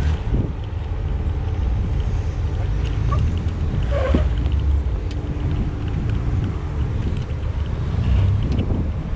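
Off-road Jeep's engine running at low revs as it crawls over a steep obstacle, with heavy wind buffeting the microphone that makes a steady low rumble.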